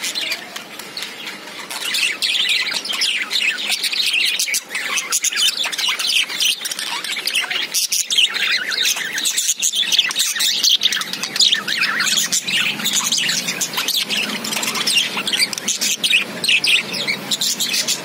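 Budgerigars chirping and chattering continuously, a dense stream of short, high calls that grows louder about two seconds in.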